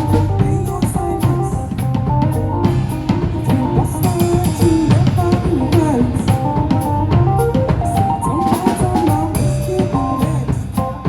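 A live band playing an instrumental passage: a drum kit keeps a steady beat with kick and snare under a bass line and a melodic lead.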